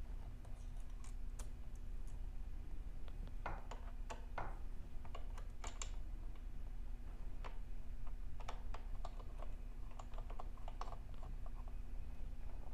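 Scattered light clicks and taps of small hardware being handled and fitted, the washers and black knobs going back onto a belt conveyor's pulley assembly, over a steady low hum.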